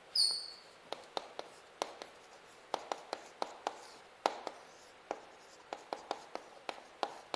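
Chalk writing on a chalkboard: sharp irregular taps and short scrapes of the chalk, a few a second. A brief high squeak opens the stretch.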